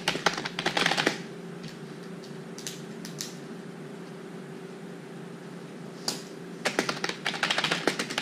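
Fast typing on a computer keyboard that stops about a second in, leaving only a few scattered key clicks, then starts again about six seconds in. A steady low hum runs underneath.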